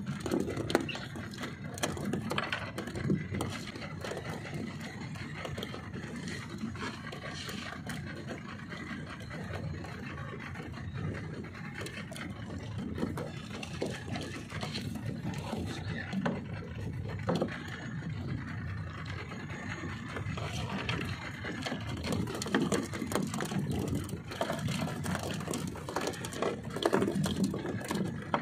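Wind buffeting the microphone and sea noise around a small open boat, an irregular low rumble that rises and falls, with scattered light knocks from fishing line and fish being handled in the aluminium hull.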